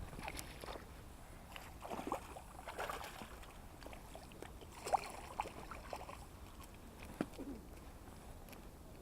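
Light, irregular splashing and sloshing of water, with a few sharp small clicks and knocks scattered through it.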